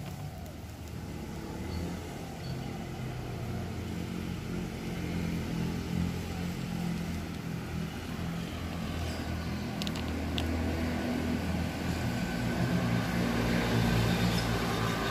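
A motor vehicle's engine running with a low hum that grows gradually louder.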